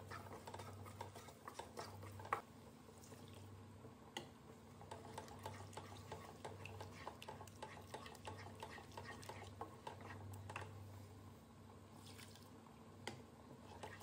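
Wooden spatula stirring and scraping a masala gravy in a non-stick kadai: faint wet squelching with scattered light taps of the spatula against the pan, over a low steady hum.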